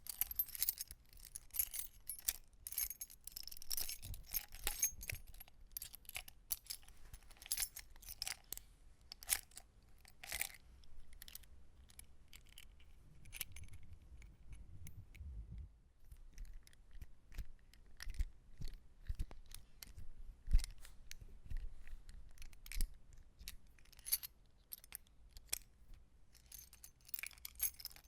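A bunch of metal keys jangling and clinking as they are shaken and handled, in irregular bursts. The jingling is busiest over the first ten seconds and again near the end, with sparser clinks and soft handling noise in between.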